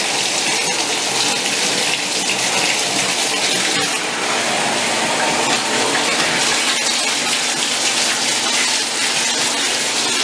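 Water running steadily from the tap into a bathtub.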